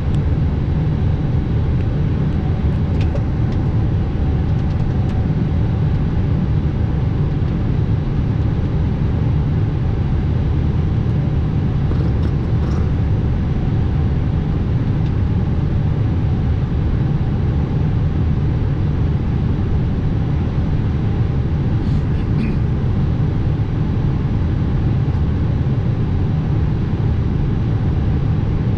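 Steady low rumble with a lighter hiss in the cockpit of a parked Airbus A320 before engine start: the air-conditioning and APU running. A few faint clicks come through it.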